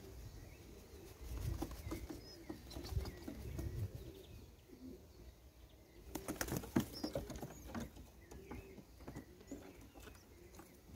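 Racing pigeons cooing softly, with a short burst of wing flapping about six seconds in.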